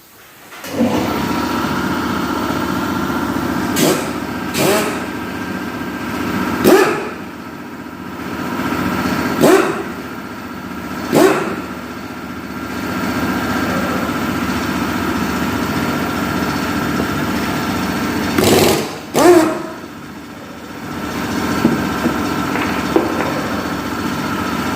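Removal of the pulley from a Suzuki Wagon R integrated starter generator: a machine runs steadily while short, sharp bursts of tool noise sound every second or two, about seven in all, with a gap in the middle.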